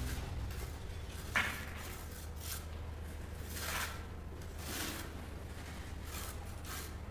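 A handful of short scrapes from a steel trowel working a sand-cement mortar bed, the sharpest about a second and a half in, over a low steady hum.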